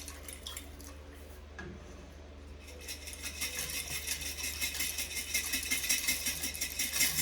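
Dry egg noodles pouring from a jar into a pot: a fast, dense rattling patter that starts about three seconds in and grows louder.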